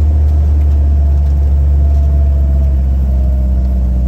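Motor vehicle driving: a steady, loud low engine and road rumble.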